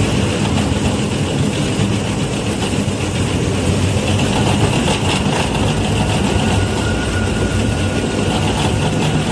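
Single-shaft shredder running under load, its toothed rotor grinding textile scraps: a steady, continuous churning noise over a low hum.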